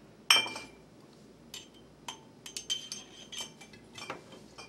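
Empty glass wine bottles clinking against each other as they are moved and set down. One sharp, ringing clink comes about a third of a second in, followed by a string of lighter clinks and taps.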